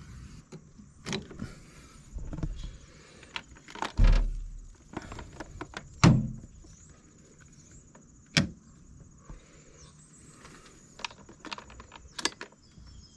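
Clicks, knocks and clunks from handling a jump pack and its clamps on a VW Touareg's jump-start posts, with two heavier thumps about four and six seconds in and a sharp click a little after eight seconds.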